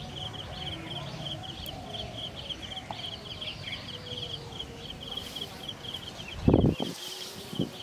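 Outdoor ambience of a steady, rhythmic high-pitched chirping that repeats without a break, over a low background hush. A brief loud rustle comes about six and a half seconds in.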